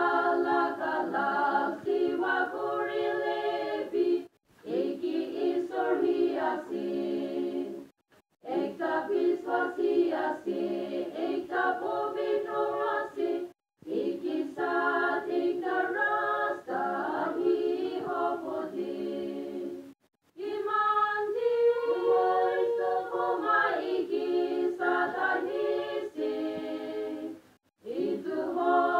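Small women's choir singing unaccompanied, with the sound cutting out briefly about five times.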